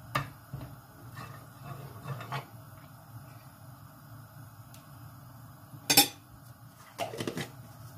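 Metal spoon scraping and tapping against a non-stick frying pan as lumps of solid coconut oil are knocked off it, then a sharp clink about six seconds in as the spoon is set down on a plate, followed by a few lighter clicks.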